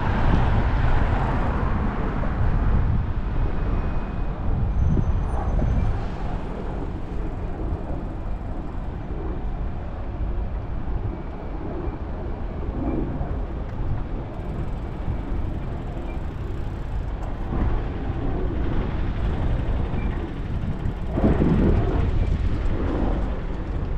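Road traffic noise from slow, queuing cars: a steady low rumble of engines and tyres, louder for a couple of seconds near the end.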